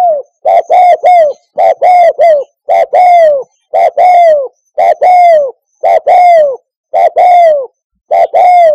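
Spotted dove cooing: a loud, steady series of call phrases, about one a second. Each phrase is a short note followed by a longer note that falls in pitch, and the first phrases have an extra short note in front.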